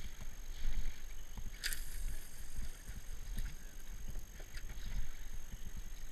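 Wind rumbling on the microphone and water sloshing against a small boat's bow, with a short sharp hiss about a second and a half in.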